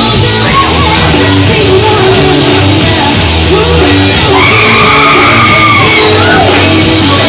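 Loud rock music with a steady heavy beat and singing. About four seconds in, a high voice rises into a long held cry lasting nearly two seconds.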